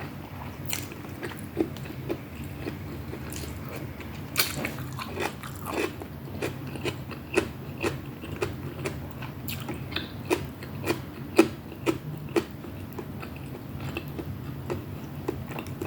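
A person chewing food close to the microphone, with sharp crunches and mouth clicks coming at irregular times, one or two a second, over a steady low hum.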